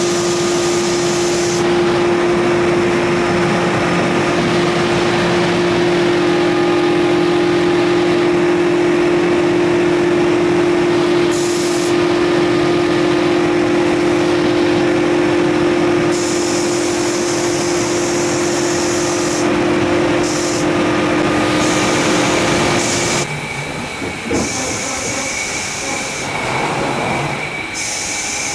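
Automatic car wash machinery running: a steady electric motor hum over hissing water spray, the spray switching on and off several times. About 23 seconds in, the hum stops and the sound turns rougher and a little quieter.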